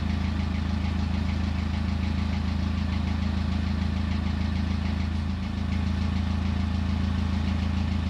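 Narrowboat's diesel engine idling steadily, a low hum with a fast, even beat.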